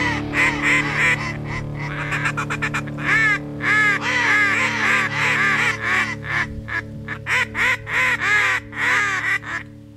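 Duck quacking in quick runs of several short calls a second, with brief pauses, over steady background music.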